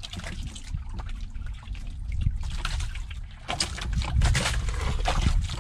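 Spoons clinking and scraping on plastic plates and bowls as people eat, with water sloshing and trickling over a steady low rumble.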